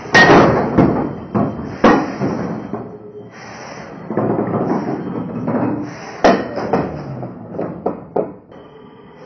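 Small 450 g combat robots banging into each other and into the arena's plastic walls: a loud bang at the start, more at about two and six seconds in, and a quick run of knocks near the end, over the whir of their motors.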